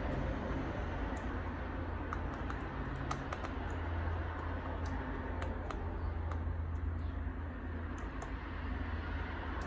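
Scattered small clicks and taps of hands fitting the SATA cable and 2.5-inch drive holder inside an open laptop chassis, over a steady low hum.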